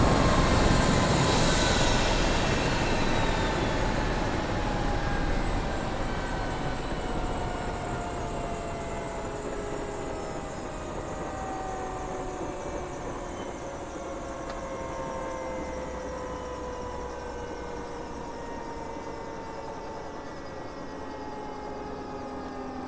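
Helicopter winding down, its turbine whine falling slowly in pitch over about twenty seconds as the sound fades.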